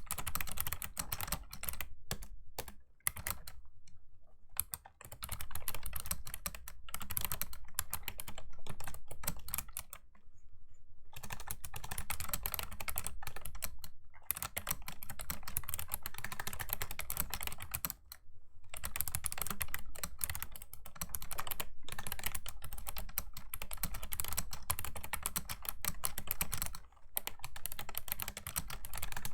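Fast, clicky typing on a Razer Ornata Chroma V2 mecha-membrane keyboard: dense runs of keystrokes broken by several brief pauses.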